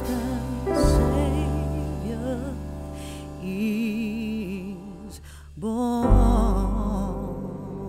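Background music: a song with a singing voice that wavers in vibrato over sustained instrumental notes, with a deep bass coming in about six seconds in.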